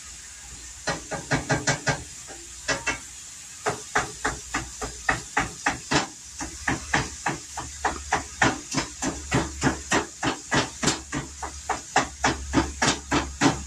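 A cooking utensil knocking repeatedly against a frying pan on the stove as ground meat is broken up, in uneven runs of about three strikes a second, over a steady hiss.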